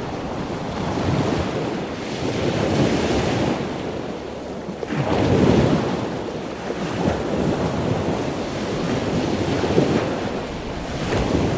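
Ocean waves breaking and washing on the shore, rising and falling in surges, the largest about five seconds in, with wind buffeting the microphone.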